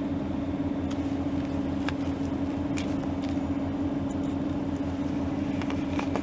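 Steady low machine hum, like an idling engine, with a few faint clicks and scrapes of a small wire stripper's hook being worked on Romex cable.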